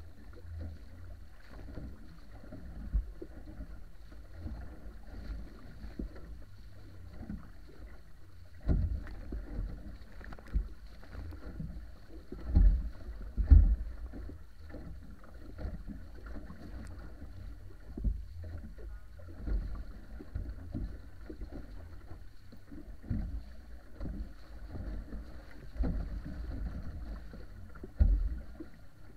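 Water rushing past and slapping against the hull of a wooden wa'apa outrigger sailing canoe moving through choppy water, with irregular low thumps of waves hitting the hull, the loudest a little before and after halfway through and again near the end.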